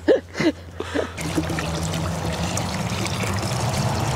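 Water from a garden hose running steadily into a metal pan, starting about a second in.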